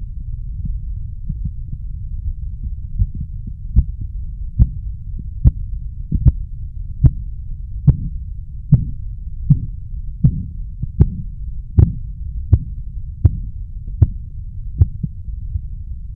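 Korotkoff sounds heard through a stethoscope as a blood pressure cuff deflates. Over a steady low rumble, soft taps begin about four seconds in at a regular pulse of about 75 a minute, grow louder to a peak a little before the last third, then fade and stop near the end. The first tap marks the systolic pressure, and the point where the taps disappear marks the diastolic pressure.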